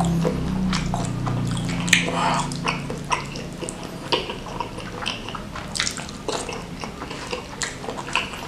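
Close-miked chewing: wet mouth clicks and smacks, several a second, as a mouthful of spicy stir-fried beef lung with rice is eaten.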